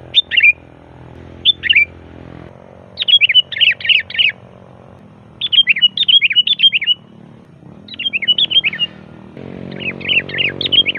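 Sooty-headed bulbul calling loudly: two short phrases, then repeated bursts of rapid, bubbly chattering notes.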